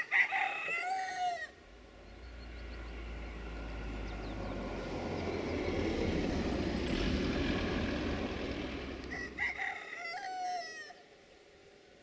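Rooster crowing, once at the start and again near the end. Between the two crows a low rumble swells and fades.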